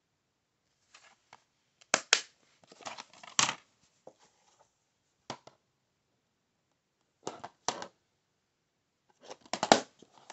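Plastic DVD cases being handled: several short bursts of clicks and clatter, with silence between, as cases are shut, picked up and turned over.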